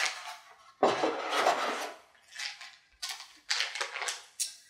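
Plastic packaging bags crinkling and rustling as antennas wrapped in them are pulled from a long cardboard box and handled, in two short stretches with a pause between.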